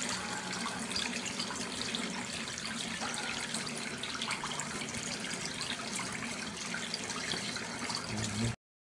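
Water running steadily from a tap and splashing into a basin below, cutting off suddenly near the end.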